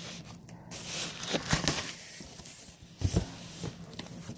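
Cardboard mailer being torn and pulled open by hand, with rough ripping and rustling, and two heavy thuds, about one and a half and three seconds in, as the package is handled.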